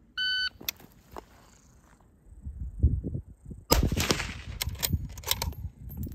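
An electronic shot timer beeps once, and about three and a half seconds later a Ruger Gunsite Scout bolt-action rifle fires a single loud shot that rings out; a few sharp clicks follow.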